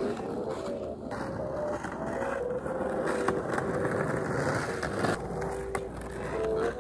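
Skateboard wheels rolling over an asphalt street, a steady rumble, with roller-skate wheels rolling alongside.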